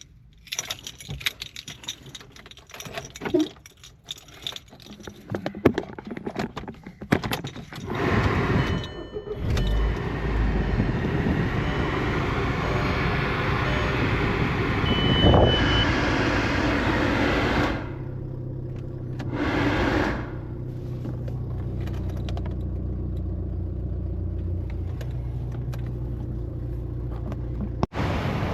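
Keys jangling and clicking, then the VW MK4 1.8T four-cylinder turbo engine starting about eight seconds in and running steadily. Near the end the sound briefly drops, rises again, and settles at a slightly lower level.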